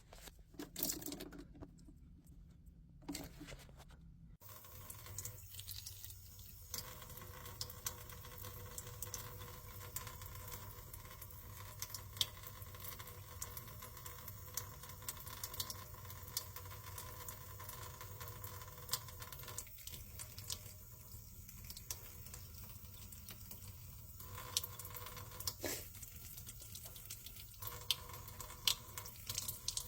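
Water being flushed through a Whirlpool refrigerator's ice-clogged freezer drain tube, with scattered patters and drips, over a steady hum that starts about four seconds in.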